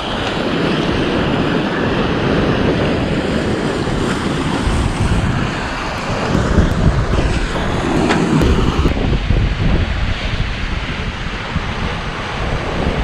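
Wind buffeting the microphone over the steady rush of water gushing out of a large pipe outlet into a reservoir, with small waves on the lake.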